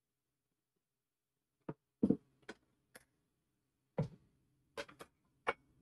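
Light clicks and knocks of kitchen items handled on a countertop, such as a plastic syrup bottle and a plate. About eight short, sharp taps are spread irregularly over four seconds, starting about a second and a half in.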